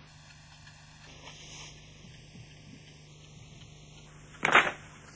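Knuckles cracking: one short, loud crack about four and a half seconds in, over a faint steady hum.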